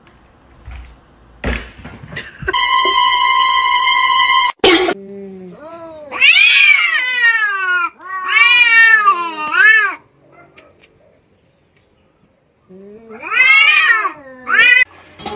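Two cats yowling at each other in a standoff: long wavering caterwauls that rise and fall in pitch, in three stretches, with a pause of about two seconds before the last. Before them, a thump and then a steady high buzzing tone lasting about two seconds.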